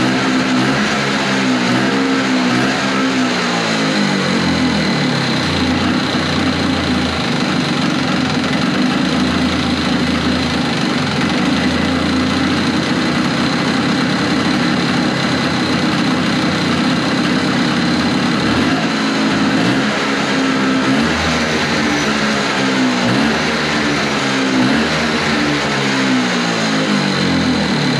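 1970 Evinrude Skeeter 440 snowmobile's opposed twin-cylinder two-stroke engine running. It is revved up and down several times near the start and again in the last third, and holds steadier in between.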